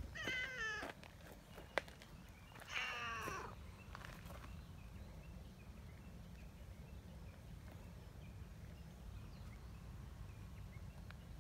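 A female brown tabby cat meowing twice, each call a little under a second long and about two and a half seconds apart, with a sharp click between them.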